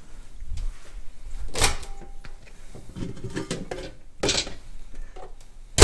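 A few knocks as a dish is handled and set into a microwave oven, then the microwave door shutting with a sharp, loud click at the very end.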